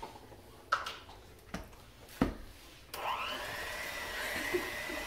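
A few short knocks, then about three seconds in an electric hand mixer starts up, its whine rising briefly as it spins up, and keeps running steadily, beating cake batter in a bowl.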